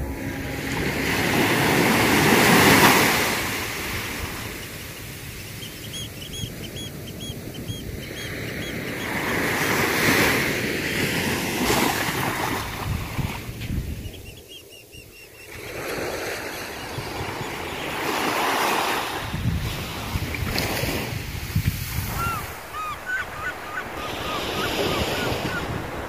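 Small surf waves washing onto a sandy beach, the wash swelling and fading in surges every several seconds. It is briefly quieter about halfway through.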